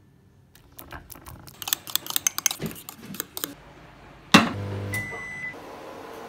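Irregular clicking and crunching for about three seconds, then a sharp clunk as a mug is set down inside a microwave oven, followed by a short low hum and a single beep from the microwave.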